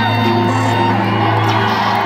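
Live rock band playing in an arena: held synth chords over a steady low drone, with the crowd shouting and whooping underneath.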